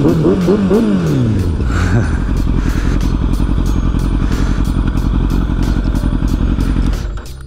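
Sportbike engine with an aftermarket exhaust, revved up and down in quick throttle blips for about two seconds, then running steadily at low revs as the bike rolls slowly; it drops away near the end.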